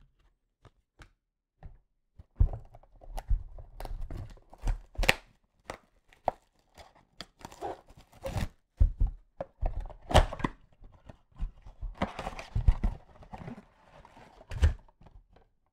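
Trading-card packaging being torn open and crinkled by hand, with scattered thunks and clicks of things handled on a table; nearly quiet for the first two seconds.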